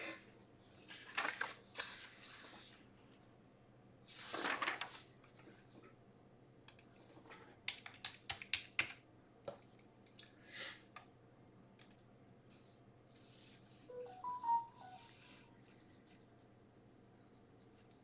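Faint scattered clicks and rustles over a low steady hum, with a run of quick clicks about eight seconds in and a louder rustle about four seconds in.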